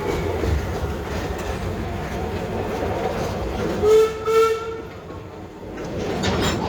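Park railway train running along the track with steady rail clatter, and a short two-part locomotive whistle blast about four seconds in.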